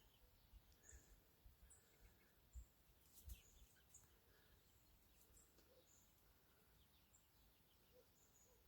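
Near silence with faint, scattered short high-pitched bird chirps and a few soft low thumps.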